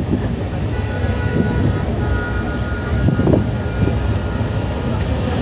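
Steady rumble of a train carriage running on the rails, with faint high tones about one to two seconds in.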